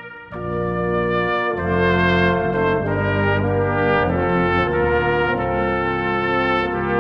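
Brass ensemble of trombone, French horn, trumpet and tuba playing a slow hymn in held chords. After a brief break at the start, each chord is sustained and changes about once a second.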